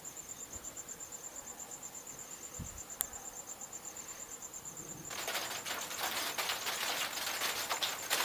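A cricket chirps in a steady, rapid, even pulse. About five seconds in, rain starts up as a rising hiss with drops ticking close by, while the cricket carries on under it.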